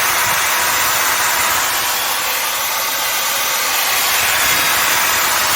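Makita 5806B circular saw running steadily at free speed with no load, its trigger locked on.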